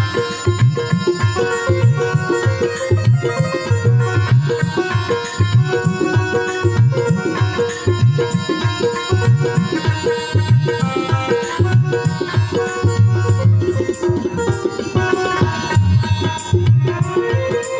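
Instrumental interlude of a Hindi devotional bhajan: tabla keeping a steady rhythm under a melody instrument playing held notes.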